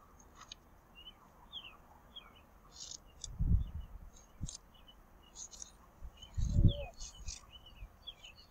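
Small birds chirping repeatedly, with short clicks of scissors snipping through a paper sheet. Two low thumps come about three and a half and six and a half seconds in.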